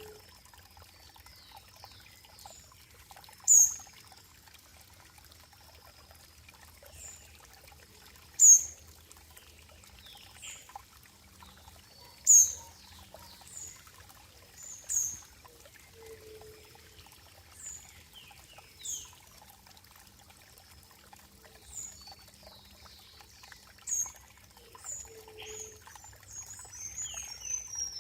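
Water trickling and pouring steadily, with a bird's short high chirps every few seconds standing out above it. A bird's falling whistle sounds at the very end.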